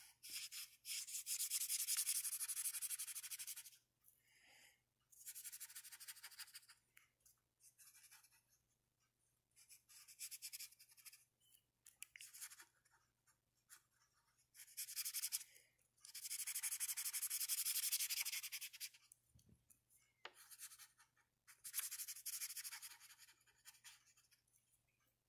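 Felt-tip marker scribbling on paper with rapid back-and-forth colouring strokes, in spells of one to three seconds with short pauses between.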